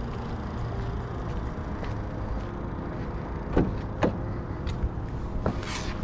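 A Ford Kuga's door being opened and someone getting in: two sharp clicks of the handle and latch about three and a half and four seconds in, a few lighter ticks, and a short rustle of movement near the end, over steady background noise.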